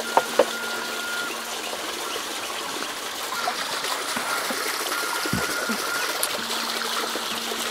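Water pouring steadily from a pipe spout, with two sharp clicks just after the start.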